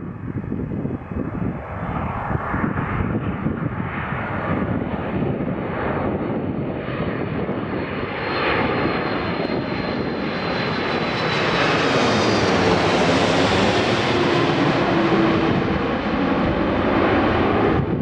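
Airbus A330-300 airliner passing close on its landing approach, its jet engine noise swelling to a peak about two-thirds of the way through, with a high whine falling in pitch as it goes by.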